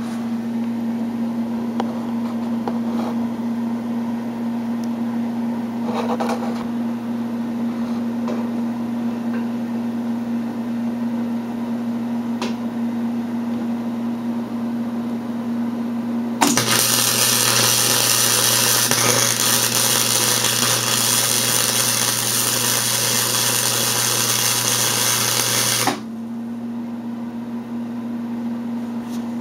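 Wire-feed welder running self-shielded flux-core wire: a steady electrical hum, then about sixteen seconds in an arc is struck and held for about ten seconds with a loud, steady crackle before cutting off abruptly.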